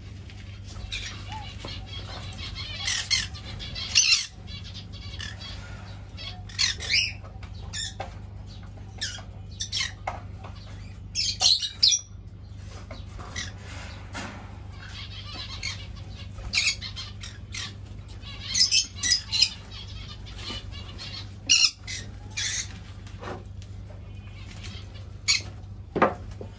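Pineapple green-cheeked conures giving short, harsh squawks and chirps at irregular intervals, over a steady low hum.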